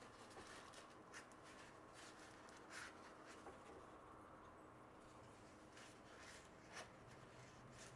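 Near silence: faint room tone with a handful of soft, short scratches scattered irregularly through it.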